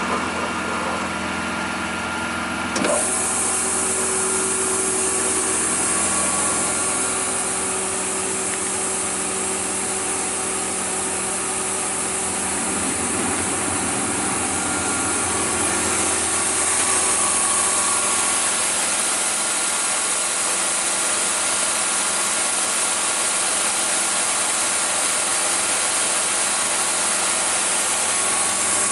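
Sliding table panel saw running, its motor and blade spinning with a steady hum and hiss; the sound changes abruptly about three seconds in.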